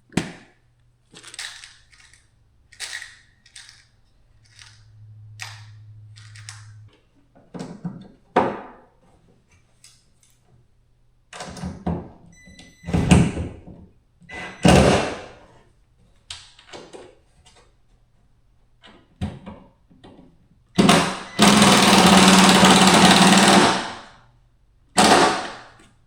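Scattered knocks and clatters of tools and hardware being handled on an aluminium boat, with two louder hits in the middle, then a power drill running for about three seconds near the end, driving self-tapping screws to mount rod holders.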